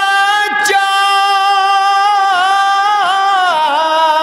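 A man's voice singing a line of an Urdu couplet in a melodic recitation, holding one long note on the word "bachcha" that wavers and dips in pitch near the end.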